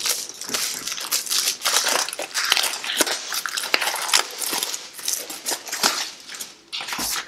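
Clear plastic shrink-wrap being torn open and pulled off a boxed magazine pack, crinkling and crackling continuously.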